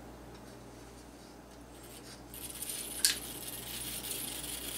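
Coleman Dual Fuel 533 single-burner camp stove being lit: a steady high hiss starts a little over two seconds in as the fuel valve opens, and there is a sharp click about a second later as it lights. The stove then hisses on steadily, short of pump pressure.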